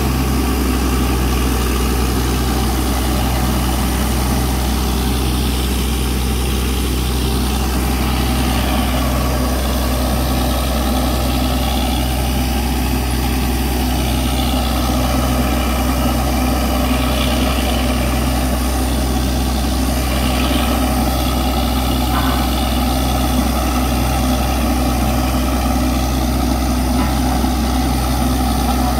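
Heavy diesel engine of a borewell drilling rig running steadily at an even speed, with a slow regular pulse about once a second.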